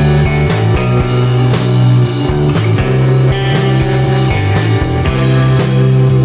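Rock background music with guitar and a steady drum beat, about two beats a second.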